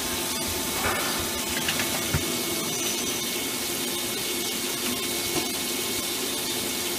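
Flood coolant spraying and splashing over the tool and workpiece inside a 1997 Nakamura-Tome TW-10MM CNC lathe during a cut. It makes a steady hiss, with a faint steady machine hum beneath it.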